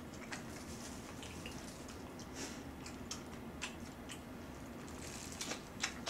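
Quiet, wet mouth clicks and smacks of a person chewing food, coming singly or a few together with short gaps.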